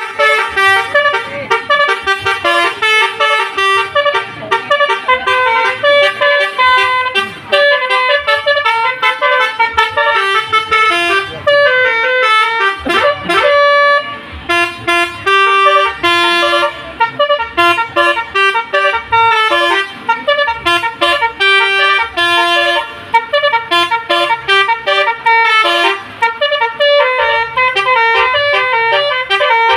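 Telolet bus horn, a multi-tone horn playing a fast stepping tune of short notes on and on, with a brief falling glide about thirteen seconds in.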